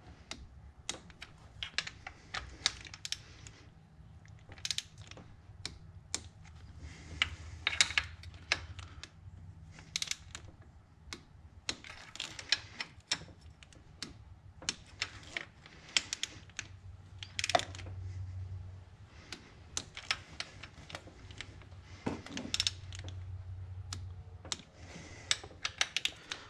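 Torque wrench ratcheting in short runs of quick clicks as the oil filter housing bolts are torqued to 22 newton meters. A faint low hum comes and goes underneath.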